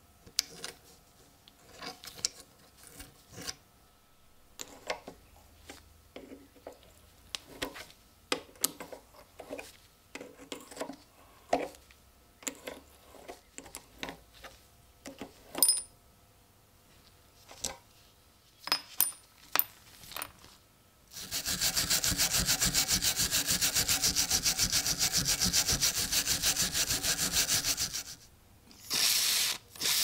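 Metalworking on a switchblade's handle scales and rivets. First come scattered scrapes and clicks of tools on metal, with a few sharp, ringing taps of a hammer on a punch over a rivet pin. Then comes about seven seconds of a loud, steady, fast rasping, and another short burst of it near the end.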